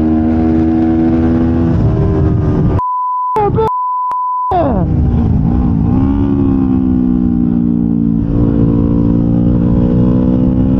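A Kawasaki Ninja 500's parallel-twin engine running at high revs on track, heard onboard. About three seconds in, a steady high beep tone replaces the engine sound for about a second and a half, broken once. Then the revs drop sharply, as under braking and downshifting, and climb again as the bike accelerates.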